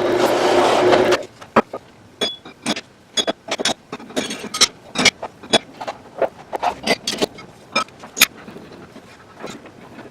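Workshop work sounds: a power tool runs in a short burst of about a second at the start, then comes a string of irregular sharp clicks and knocks from hardware and parts being handled, some with a brief metallic ring.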